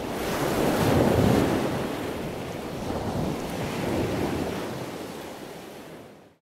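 Ocean surf: waves rushing and washing in, swelling about a second in and again around four seconds, then fading out near the end.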